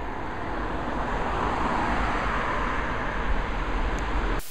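Road traffic noise from cars on the street alongside, the tyre noise swelling as a car passes about two seconds in, with a low rumble underneath; a sharp click at the very end.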